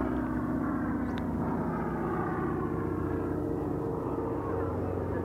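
Propeller aircraft engine droning steadily overhead during an aerobatic display.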